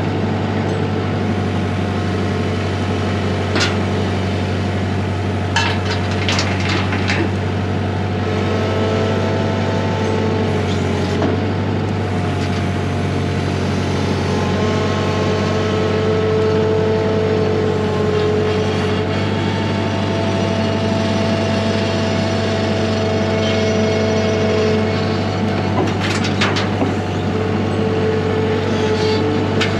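A steady engine-like drone with a few tones that waver slightly in pitch, and scattered clicks and knocks over it.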